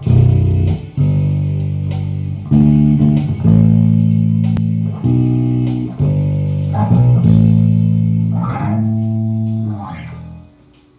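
Tagima TJB-5 five-string electric bass played slowly, each note or chord struck and left to ring for about a second before the next. The playing fades out near the end.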